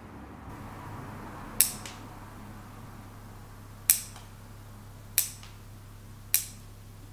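Bonsai scissors snipping shoots off a shinpaku juniper: four crisp snips, spaced a second or two apart.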